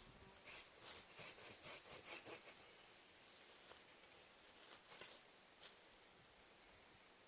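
Folding hand saw cutting through a small tree trunk: a faint, quick run of scratchy strokes, about four a second, that stops after about two and a half seconds, followed by two faint clicks around five seconds in.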